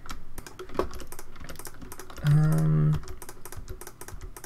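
Computer keyboard keys clicking in quick, uneven taps as editing shortcuts are pressed. A brief, steady, low hum rises above them a little after two seconds in.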